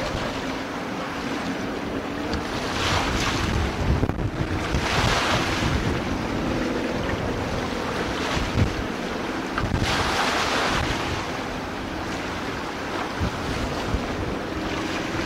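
Wind buffeting the microphone over the wash of the sea, with a steady low rumble underneath and a few louder rushes of water noise.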